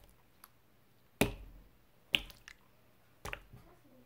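A blob of black slime dropped onto a wooden tabletop, landing three times about a second apart, each a sharp slap.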